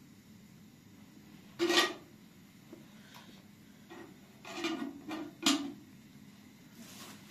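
Handling noise: a few short, crackly rustles and scrapes as crocheted scrubbers and a plastic bag are handled. The loudest comes about two seconds in, and a cluster of them comes around five seconds in.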